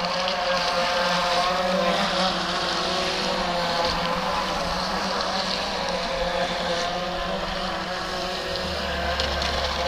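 Electric RC boat running on the water: a steady motor whine over the rushing hiss of the hull and spray, with some wind on the microphone.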